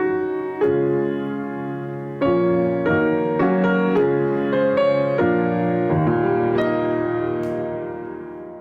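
Slow, gentle piano music, chords struck one after another, fading out near the end.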